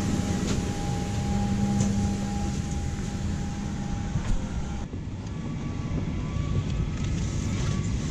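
Steady airliner cabin noise on a Boeing 737-800 on the ground: a continuous rumble of ventilation and aircraft systems, with a steady hum at two pitches. About five seconds in the sound changes abruptly, the hum stopping and the noise turning duller.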